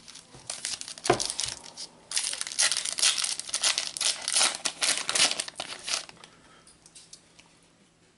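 Panini Adrenalyn XL trading-card packet crinkling as it is handled and torn open, a dense run of crackling for about six seconds with a knock about a second in. The crackling dies away over the last couple of seconds.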